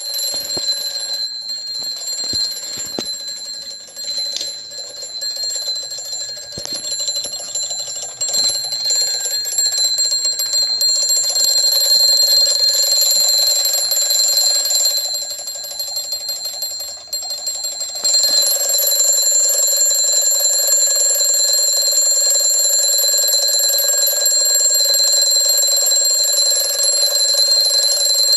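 Alarm clock ringing continuously at a fixed pitch, with a few clicks and knocks in the first several seconds. It is uneven and at times quieter at first, then becomes louder and steady about two-thirds of the way through.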